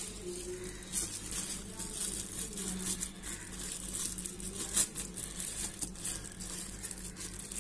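Thin plastic bag crinkling as tutti frutti (candied fruit pieces) is shaken out of it into a glass bowl, with scattered light clicks of the pieces.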